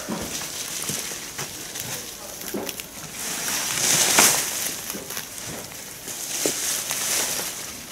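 Garden hoe chopping and scraping into dry soil around a plant's roots, with rustling of dry stalks and weeds and scattered short knocks; the loudest rasping scrape comes about four seconds in.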